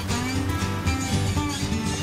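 Background music with a guitar playing steady held notes.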